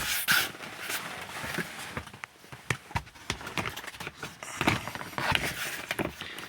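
Irregular clicks, knocks and rustling of something being handled, with no steady tone or rhythm.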